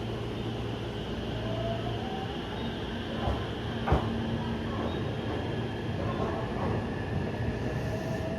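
Train running at a station platform: a steady low hum with a faint rising whine, and a sharp clack about four seconds in.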